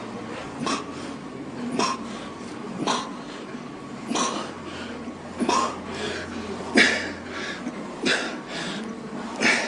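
A man's short, forceful exhalations, about one every second and a quarter in a steady rhythm, like breathing hard through a set of weight-lifting reps.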